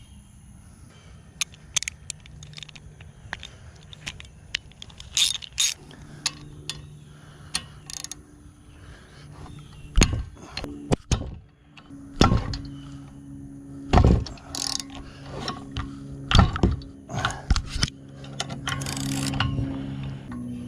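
Hand tools working on a small, broken go-kart engine being taken apart: scattered metal clicks, clinks and knocks, louder and more frequent in the second half.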